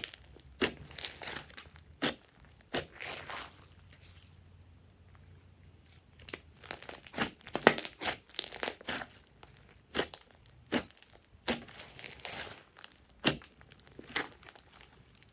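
Glossy slime being squeezed, stretched and folded by hand: irregular wet clicks and sticky pops as it pulls apart and air pockets burst. There is a quieter stretch about four to six seconds in.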